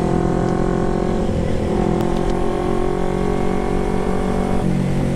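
Kawasaki Ninja 250's carbureted parallel-twin engine running through an aftermarket Termignoni megaphone exhaust while riding, loud and steady. The pitch shifts slightly about a second and a half in and again near the end.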